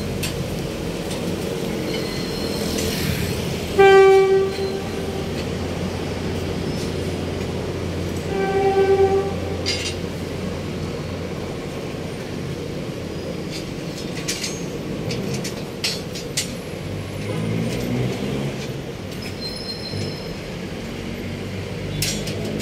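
Two short horn blasts about four and a half seconds apart, each one steady pitch, over a steady low rumble.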